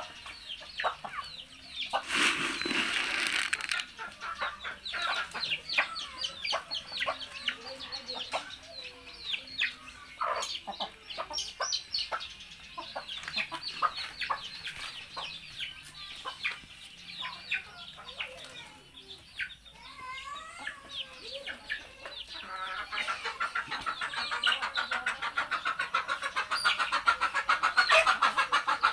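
Chickens clucking and calling in many short, quick notes as they forage. There is a noisy rustling burst about two seconds in, and a denser, louder stretch of sound builds over the last six seconds.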